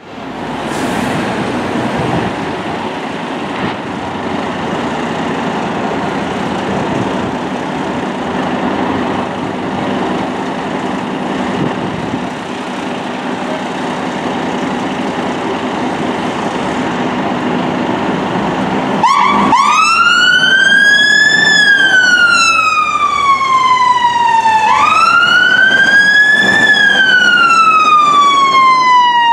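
Fire engines' diesel engines running steadily as the appliances pull out, then about two-thirds of the way through a fire-engine siren starts and wails, rising and falling slowly about once every five seconds, louder than the engines.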